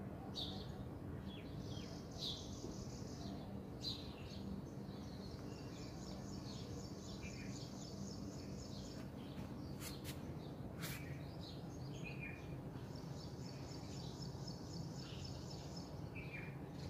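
Small birds chirping, with several long, fast trills, over a steady low hum.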